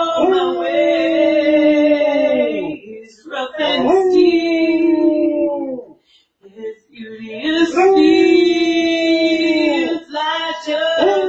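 Basset hound howling along with a woman singing: three long drawn-out notes, each sliding down in pitch at its end, with short breaks between them and a fourth starting at the very end.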